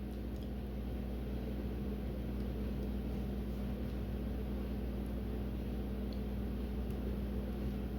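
Steady low hum with a few constant low tones, from the Whirlpool WRS321SDHZ refrigerator running.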